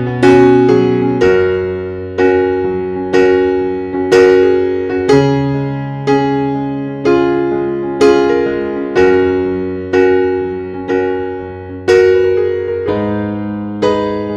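Background music: slow piano chords, a new chord struck about once a second and left to ring and fade.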